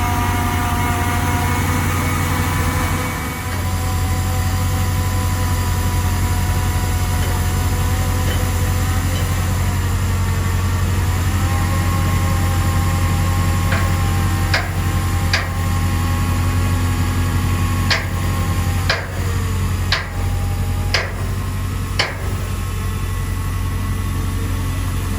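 Heavy diesel engine running steadily under load, with a whine that shifts pitch a couple of times. In the second half there are about eight sharp metallic clanks or knocks.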